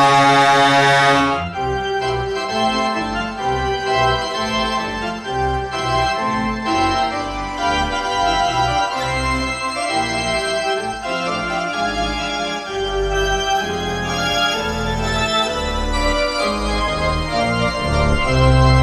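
Hockey arena organ playing a quick melody of short stepping notes. It comes right after the goal horn's long, steady blast, which cuts off about a second and a half in.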